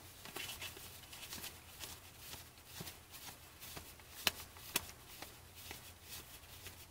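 Trading cards being flipped through by hand: soft, uneven rustles and ticks of card stock, with two sharper clicks a little past the middle.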